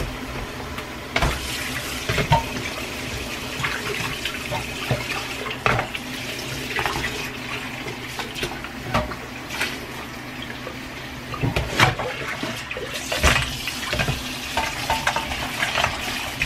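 Kitchen tap running into a stainless steel bowl of raw chicken feet in a steel sink, with splashing as hands rinse and rub them, and scattered short knocks and clatter as the feet and bowl are handled.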